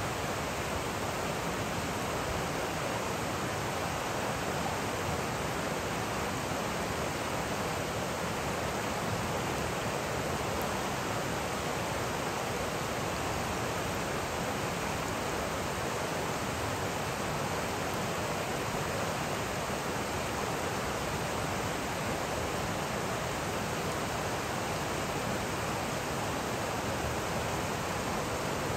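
Steady rush of a shallow, rocky river running over stones and riffles.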